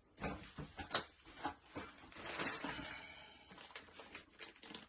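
Handling noises from the boxed ironing board and its packaging: a run of irregular clicks and knocks, with a longer rustle about two seconds in.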